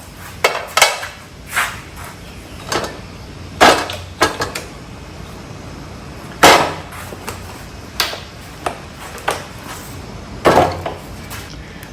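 Scattered knocks and clinks of metal wheelchair parts and tools being handled while a front caster assembly is taken apart, about a dozen irregular hits with the loudest about six and a half seconds in.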